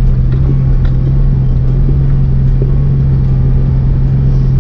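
A Jeep's engine and drivetrain droning steadily as it drives along packed snow, with a constant low hum.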